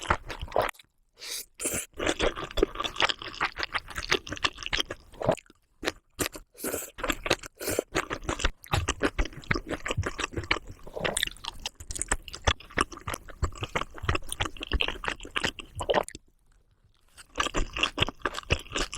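Close-miked crunchy chewing of food, a dense run of crackly bites and mouth sounds, with a few brief silent breaks, including one about a second in and a longer one near the end.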